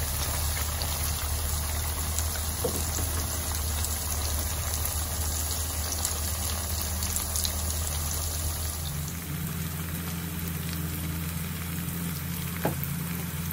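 Cornflour-coated beef pieces deep-frying in hot oil: a steady crackling sizzle, with a low hum underneath.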